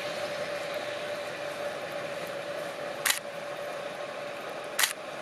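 Two sharp camera shutter clicks, about three seconds in and again near the end, over a steady rushing noise.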